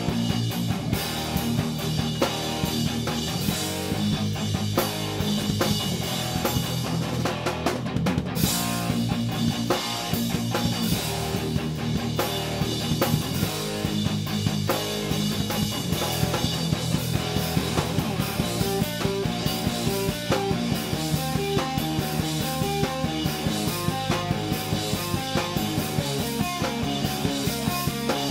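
Rock band playing together: drum kit with cymbals, electric guitar and bass guitar, with fast, steady drumming throughout.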